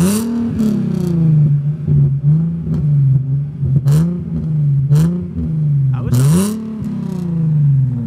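A car's engine revved several times through its exhaust in short blips that rise and fall in pitch, with a few sharp exhaust pops between them.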